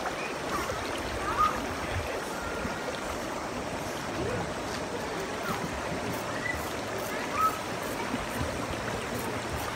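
Shallow river water rushing and babbling steadily, with light splashing from a dog paddling against the current.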